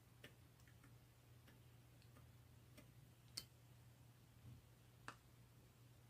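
Near silence: room tone with a low steady hum and a few faint, irregularly spaced clicks, the clearest about three and a half seconds in and again about five seconds in.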